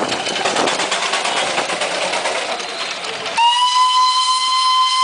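Darjeeling toy train: a noisy, rapid, even clatter, then about three and a half seconds in a long steady whistle starts and holds.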